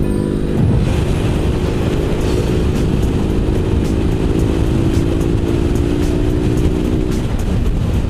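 BMW R1200GS motorcycle riding along a road: steady engine rumble and wind rush on a bike-mounted camera, growing louder about half a second in.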